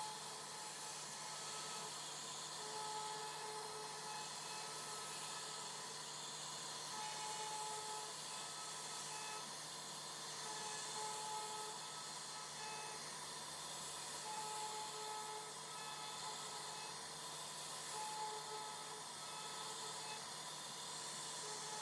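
CNC router carving wood: a steady high hiss from the spindle and cutter, over a low hum, with short tones coming and going every second or two as the machine moves.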